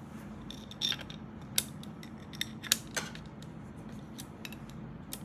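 Small irregular clicks and taps from hands fitting parts on a PC motherboard's M.2 SSD area, with a few sharper metal clicks, over a low steady hum.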